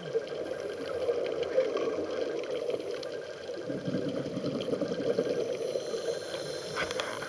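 Muffled underwater noise through a dive camera's housing: a steady rush with scattered faint crackling clicks, and a low rumble that swells for about a second around four seconds in.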